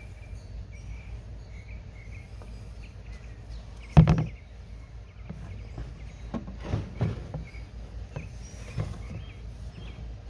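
A single loud knock about four seconds in, followed by a few lighter knocks, over a low steady hum.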